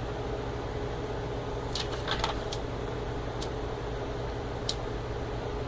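A steady mechanical hum, with a few faint clicks through the middle.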